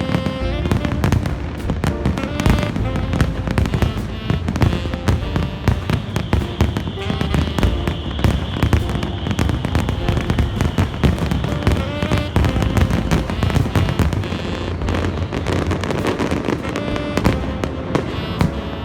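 A fireworks display going off in rapid, continuous bursts and crackles over loud music. A high held tone rises above it from about six seconds in to about twelve seconds.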